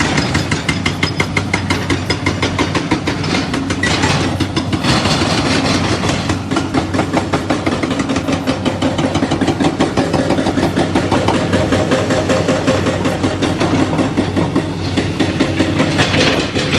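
Hydraulic rock breaker hammering in rapid, evenly spaced blows, over the steady hum of the carrier machine's engine.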